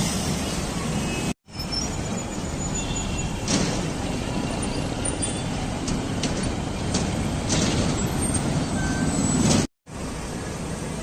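Busy road traffic: buses, trucks and cars running past, with a few short hisses. The sound drops out twice, briefly, where the recording is cut.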